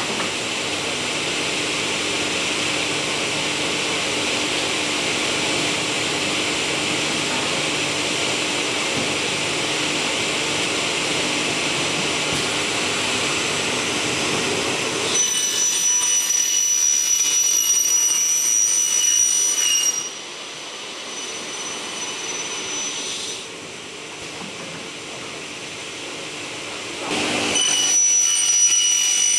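Power tool running in an aluminium workshop: a steady hiss of machine noise, then a high-pitched motor whine from about halfway that eases off for a few seconds and comes back near the end.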